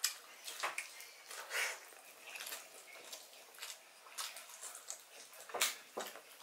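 A man eating grilled chicken legs by hand: chewing with mouth clicks and smacks, and the meat being pulled apart. The noises come irregularly, with two sharper smacks near the end.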